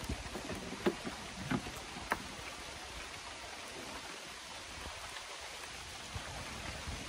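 Steady light rain falling, with three short sharp taps in the first two seconds or so.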